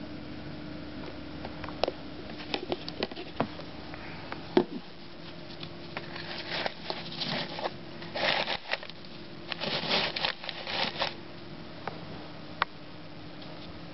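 Wood-shaving bedding rustling and crackling as a baby rabbit moves through it. There are a few sharp clicks in the first few seconds and bursts of rustling through the middle, over a faint steady hum.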